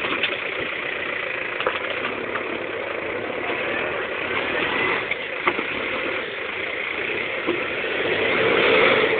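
New Holland TD5050 tractor's diesel engine running steadily while its front loader presses down on a car body, with a few sharp cracks of crumpling sheet metal. The engine grows a little louder near the end.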